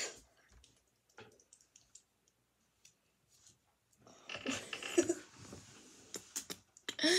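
A few faint handling clicks, then breathy laughter from a young person starting about four seconds in, with a louder burst of laughing at the very end.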